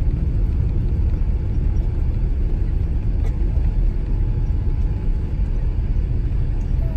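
Steady low rumble inside the cabin of a Boeing 787 Dreamliner as the airliner rolls along the runway.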